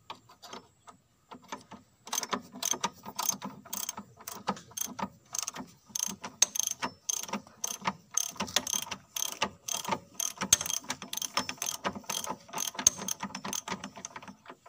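Socket ratchet wrench clicking as a track roller bolt is undone: a few scattered clicks at first, then a fast, uneven run of clicks from about two seconds in.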